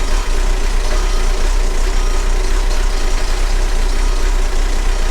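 Volkswagen ALH 1.9-litre four-cylinder turbodiesel running at a steady idle.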